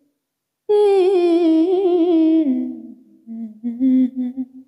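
A woman singing a cappella into a handheld microphone, without clear words: a long note with vibrato starting about a second in, then stepping down to lower, shorter notes near the end.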